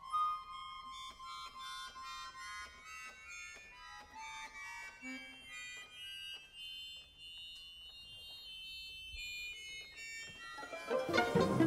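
Solo accordion and chamber ensemble playing quiet contemporary concert music: sparse high pitched notes, some short and some held, over faint ticks about twice a second. Near the end a sudden louder, fuller entry with low notes comes in.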